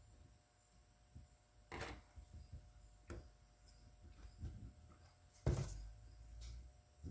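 Faint scattered clicks and knocks of small parts and tools being handled at a workbench. There is a short clatter near two seconds in and a sharper thump about five and a half seconds in, the loudest of them.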